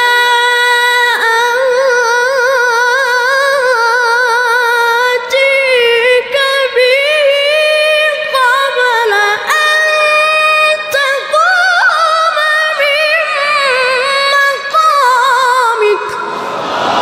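A single unaccompanied voice in Quran recitation, holding long, very high melismatic notes with fast wavering ornaments. A few brief breaks interrupt it, and its pitch climbs higher partway through. The recitation ends near the end, and a noisy crowd-like sound takes over.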